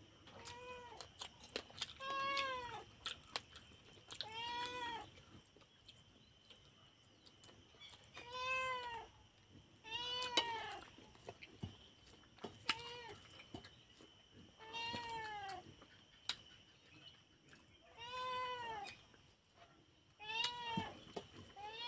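A cat meowing over and over, about ten meows spaced a couple of seconds apart, each one rising and falling in pitch, with small sharp clicks in between.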